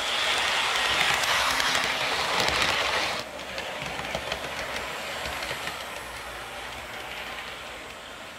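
HO scale model train running along the track, its motor hum mixed with fast clicking of wheels over rail joints. The sound drops abruptly about three seconds in, then fades away.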